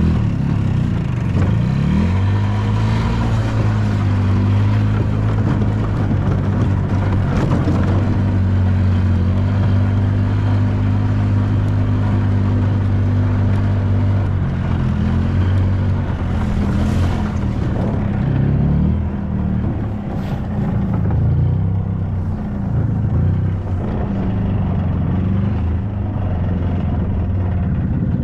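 Small farm vehicle's engine running while being driven, heard from on board. Its pitch holds steady for a long stretch, then dips and rises repeatedly in the second half as the speed changes.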